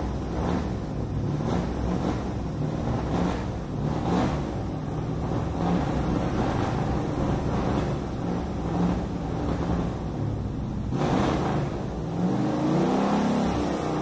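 Toy remote-control racing car driving on concrete, a continuous engine-like running sound with wavering pitch that rises in pitch a little before the end.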